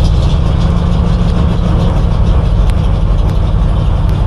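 Ford F600 truck's rebuilt 352 cubic-inch engine running steadily on full choke just after catching from a cold start on a weak battery, with a few faint ticks over the low rumble.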